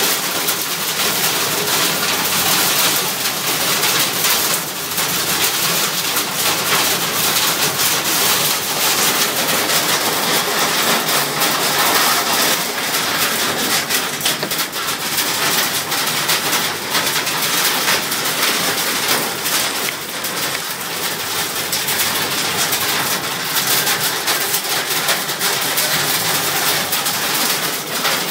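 Hailstorm with rain: hailstones pelting down in a dense, steady clatter of small hits.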